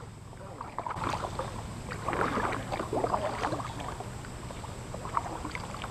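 Water splashing and sloshing around a kayak in irregular bursts, busiest in the first few seconds, over a low steady hum.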